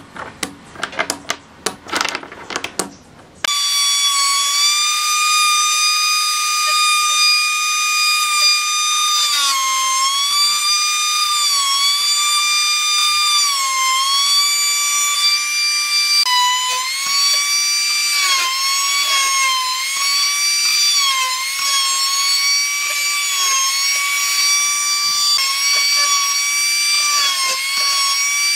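Irregular knocks and taps, then, about three seconds in, a high-speed electric power tool whining at a steady high pitch, the pitch dipping briefly again and again as it is pressed into the work.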